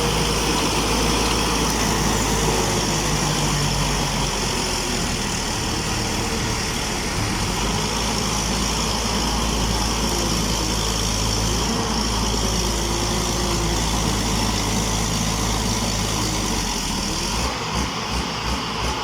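Rice combine harvester's engine running steadily, holding a constant pitch.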